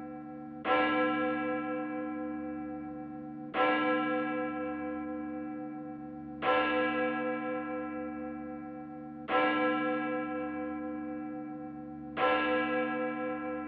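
Large bell tolling slowly: five strokes about three seconds apart, each with deep ringing tones and a long fading decay that carries on into the next stroke.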